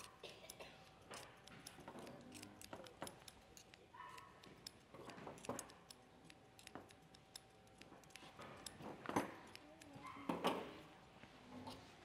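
Quiet, scattered clicks and light metal clinks of hand grooming tools as a Shih Tzu's head is scissored and combed, with two louder knocks near the end.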